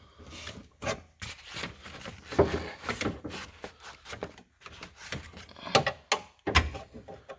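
Irregular clicks, knocks and scraping of hands and tools working parts loose inside a 2006 Ford Focus door to remove the outside door handle, with a few sharper knocks.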